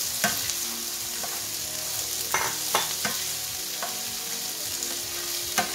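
Pinto beans and diced onion sizzling in olive oil in a frying pan while a plastic spatula stirs them, with a few sharp scrapes and knocks of the spatula against the pan, the loudest near the end.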